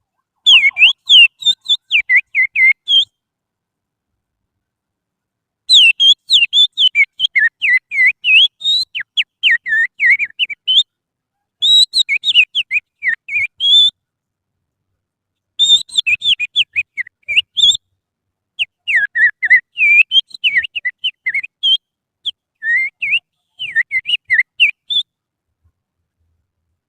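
An oriental magpie-robin (kacer) song imitated by a person with a little finger: quick, high, rising and falling chirps and whistles in five runs, with short pauses between them.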